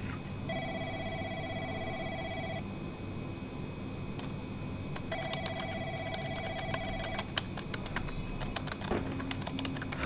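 Telephone ringing with an electronic trilling ring: two rings of about two seconds each, a couple of seconds apart.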